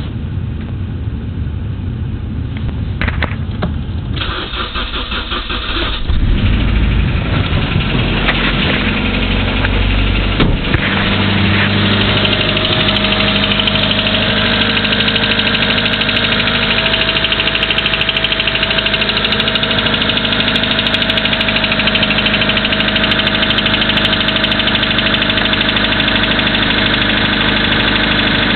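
Car engine cranked by the starter and catching about six seconds in, then idling steadily from cold with a knock that the owner says shows on a cold start and goes away as the engine warms up.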